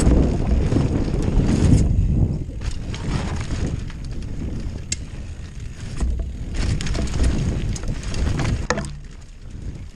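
Mountain bike ridden fast down a dirt trail, heard from a camera mounted on the bike: wind buffeting the microphone and tyres rumbling over the dirt, heaviest in the first two seconds, with a few sharp clicks and rattles from the bike.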